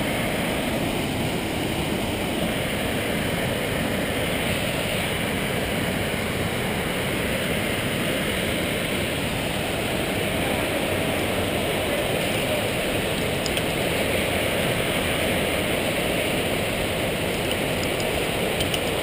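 Steady rush of creek water, an even hiss that holds unchanged.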